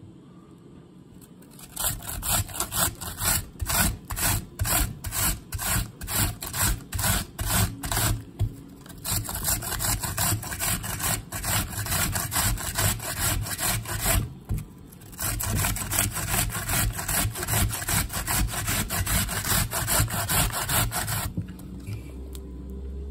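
An onion being grated by hand on a stainless steel box grater: brisk, rhythmic rasping strokes in three runs separated by brief pauses, starting about two seconds in and stopping shortly before the end.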